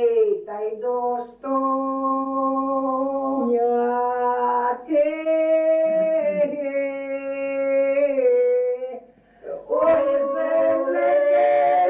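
Ukrainian village folk singers singing unaccompanied in several voices, holding long drawn-out notes. They break off briefly for breath about nine seconds in, then come back in together.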